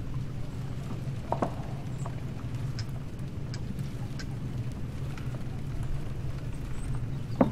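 A ship's engine running with a steady low drone under a noisy hiss. Sharp knocks come about a second and a half in and again near the end, with a few faint ticks between them.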